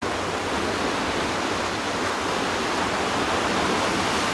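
Steady, even rushing noise with no rhythm or pitch.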